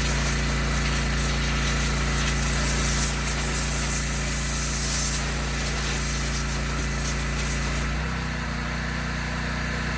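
Northstar 4000 PSI pressure washer running, its engine note steady under the hiss of the high-pressure water jet cutting through a soft poplar trunk. The engine note drops slightly and the hiss eases about eight seconds in.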